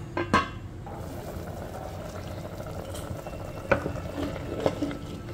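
A steel lid clatters briefly on a clay cooking pot, then watery mutton curry boils steadily in the clay handi, with a few light knocks of a wooden spoon stirring it.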